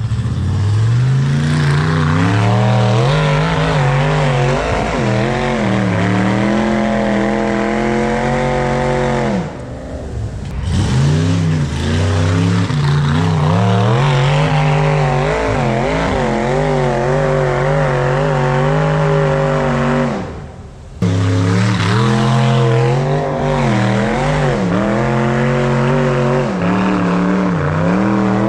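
High-horsepower off-road hill-climb vehicle engine revving hard and loud, its pitch repeatedly swinging up and down as the throttle is worked, with two brief sudden breaks where the sound cuts out.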